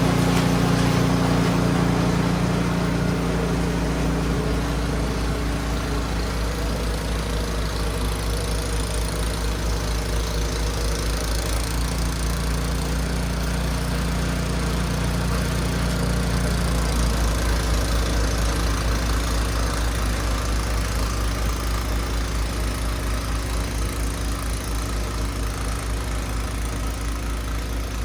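Husqvarna gas snow blower engine running steadily with an even, fast pulse.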